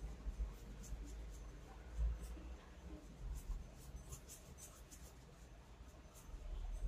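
Faint scratching and light ticking of a small hand tool working on a circuit board, with a soft low bump about two seconds in.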